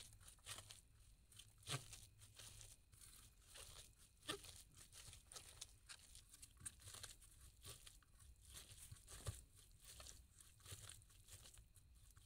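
Faint squishing and rustling of a hand mixing and squeezing chopped mustard greens with onion on a ceramic plate, with irregular sharp clicks, the loudest about two, four and nine seconds in.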